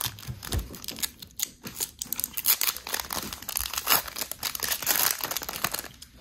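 Foil Pokémon booster pack wrapper crinkling and tearing in the hands, a busy, irregular crackle that goes on throughout.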